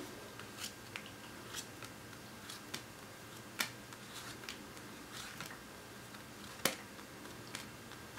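Tarot cards dealt one at a time off the deck onto a pile on a cloth: an irregular string of light card clicks and taps, two of them louder than the rest.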